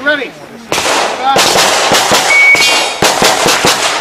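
Handgun gunfire: many sharp shots in quick succession, each followed by a short echo.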